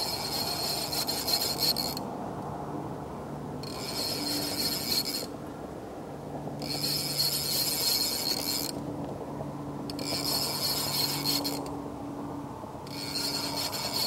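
Baitcasting fishing reel rasping in five regular bursts of a second and a half to two seconds each, with short pauses between, as line is reeled in against a hooked sturgeon on a bent rod.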